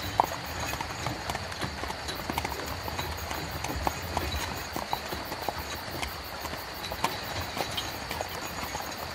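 A horse's hooves clip-clopping in an uneven run of knocks, over the steady low rumble of a horse-drawn carriage rolling along.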